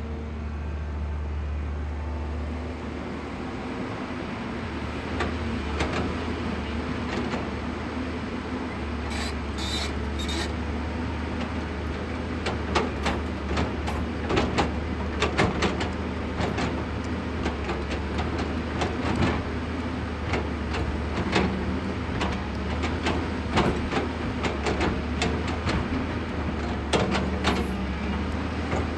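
JCB 215 tracked excavator's diesel engine running steadily while the machine digs, with many knocks and clanks of the working machine that come thicker from about twelve seconds in, and a few short high squeals near ten seconds in.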